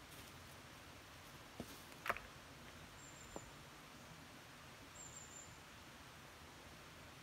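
Near-silent forest ambience with a few faint clicks and knocks of sticks being handled, the sharpest about two seconds in, and short high thin chirps twice, about three and five seconds in.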